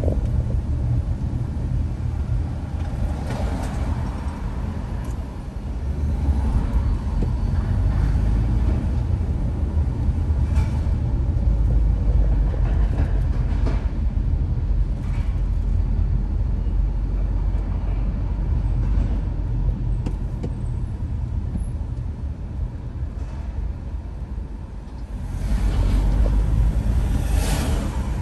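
Steady low rumble of road and engine noise from a car driving through city traffic, with a few faint whooshes of passing vehicles and the rumble swelling near the end.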